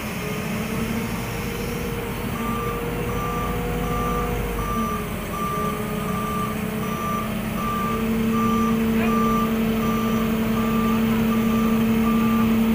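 Tadano crane's diesel engine running steadily under load as it holds a truck body on its chains, and from about two seconds in a warning beeper sounding in even beeps, a little more than one a second.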